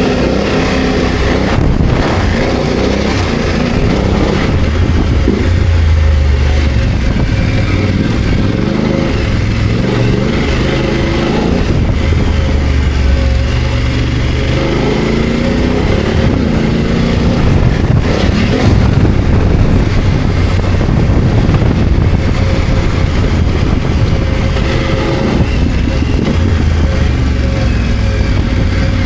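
BMW F900 GS's parallel-twin engine under way, being opened up and eased off repeatedly so its pitch rises and falls several times.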